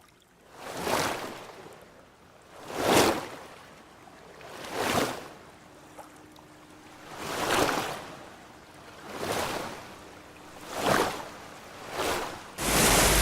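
Surf washing in, seven rising and falling rushes of water about every two seconds. Near the end a much louder steady rush of noise cuts in suddenly.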